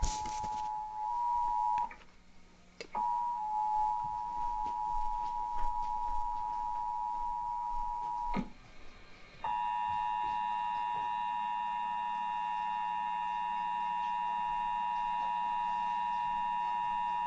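Emergency Alert System two-tone attention signal, the two steady pitches sounding together, played through a TV speaker and heralding an Amber Alert. It sounds in three stretches, about two, five and nine seconds long, broken twice by short gaps of about a second.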